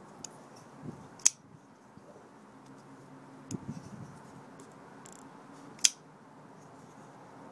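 David Mosier Large Creep IKBS flipper folding knife flicked open twice, about a second in and near six seconds, each a sharp snap as the blade swings out and locks. Fainter clicks and a few soft knocks come between as the blade is folded closed.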